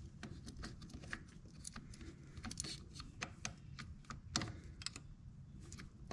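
Irregular small clicks and clinks of metal tools and small parts being handled, with one louder clink about four seconds in.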